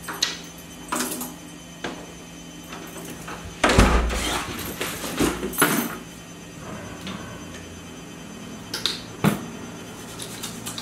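An apartment front door being opened and shut in a small hallway. A few light clicks come first, then a heavy thump about four seconds in, followed by scattered knocks, clicks and rustles of someone moving by the door.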